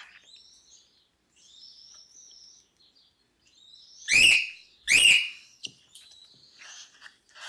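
Cockatiel chirping softly, then giving two loud calls that sweep down in pitch, about a second apart.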